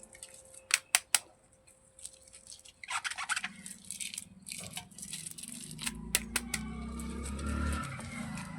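Handling noise from plastic toys: three sharp clicks about a second in, then rustling and scraping, and a low rumble with small knocks in the second half.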